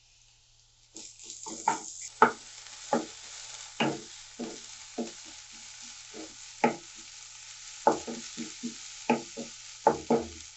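Onions and ginger-garlic paste sizzling in hot oil in a non-stick kadhai, starting about a second in. A wooden spatula stirs and scrapes them, knocking against the pan again and again at an irregular pace.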